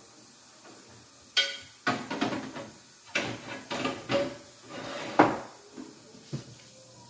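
Kitchen clatter as a metal grill pan is put into a countertop air fryer oven: a series of separate knocks and rattles, the loudest about five seconds in.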